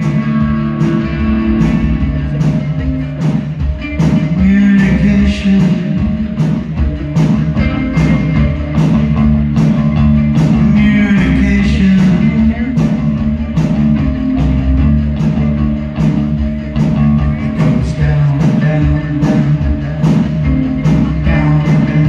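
Live rock band playing: electric guitars and bass over a steady drum beat, with singing at times.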